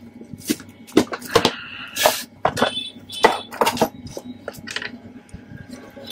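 Irregular sharp clicks, taps and knocks from the plastic case and internal parts of a V-Guard voltage stabilizer being handled by hand.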